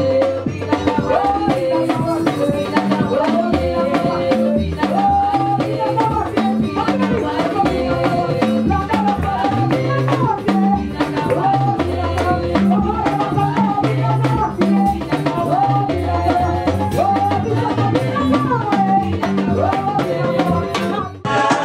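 Live gospel worship music: a woman singing lead into a microphone over a band with drum kit and bass, with the drums beating steadily. The music breaks off briefly and resumes near the end.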